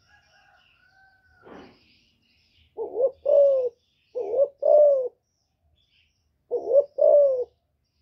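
Female spotted dove cooing: three two-note coos, each a short note followed by a longer arching note, about a second and a half to two seconds apart.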